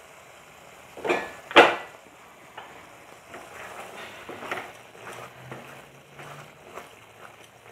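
A glass pan lid knocks twice against cookware about a second in, then a spatula stirs and scrapes through thick simmering gravy in a non-stick kadhai, with soft knocks against the pan.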